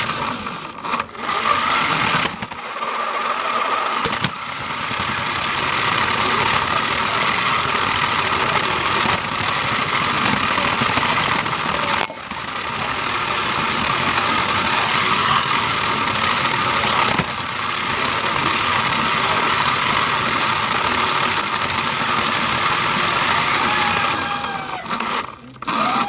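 Toy remote-control car's small electric motor and gears whining steadily as it drives, stopping briefly a few times.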